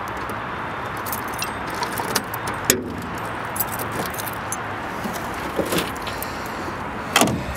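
A bunch of keys jangling and scraping as a key is worked into the trunk lock of a 1979 Pontiac Trans Am, with scattered clicks and a sharp click about three seconds in. The trunk lid is unlatched and lifted open, with a louder clatter near the end.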